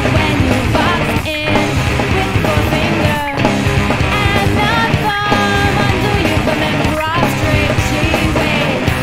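Emo/post-hardcore band recording playing at full volume: a four-piece rock band on guitars, bass and drums.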